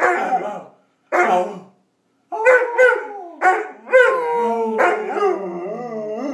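Six-month-old Greater Swiss Mountain Dog puppy howling: a few short yowls, then longer drawn-out howls that waver in pitch, the last held for well over a second. A man howls along with it to coax it on.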